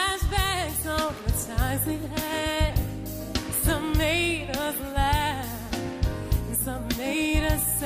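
A woman singing live with a soul band, her voice sliding and wavering through vocal runs over drums and bass.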